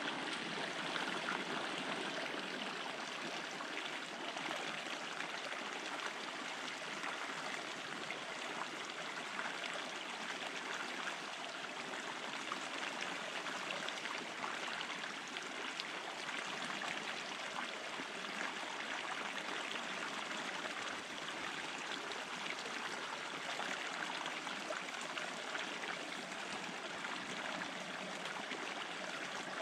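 Small mountain creek running steadily over rocks and spilling into a pool.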